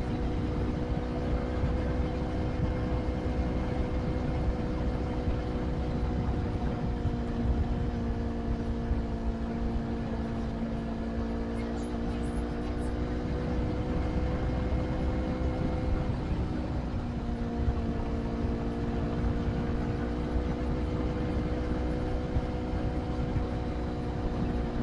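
Motorcycle engine running at a steady cruising pace, with a constant low wind rumble on the microphone. The engine's pitch wavers about two-thirds of the way through, then settles slightly lower.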